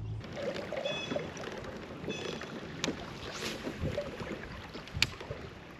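Kayak moving along a river, with water rippling and splashing against the hull. A few short high chirps come about a second in and again near two seconds, and there are two sharp clicks, near the middle and near the end.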